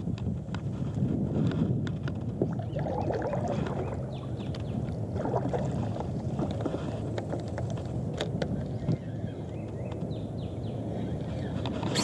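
Water sloshing around an inflatable paddle board as it is paddled, with scattered sharp clicks and knocks from the fishing rod and reel being handled on the deck.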